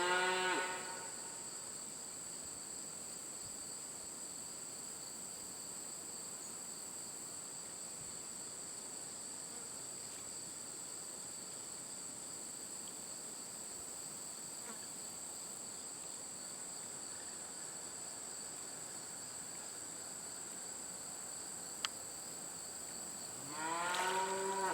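Steady, high-pitched chorus of insects droning without a break. A cow moos briefly as it begins and again near the end, and there is a single sharp click shortly before the second moo.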